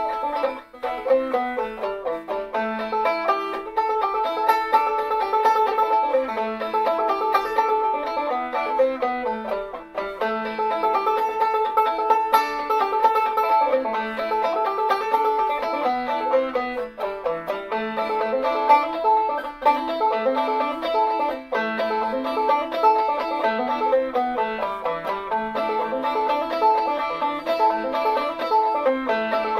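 Instrumental music on a plucked string instrument: a quick, steady stream of picked notes over a moving lower line, with no singing.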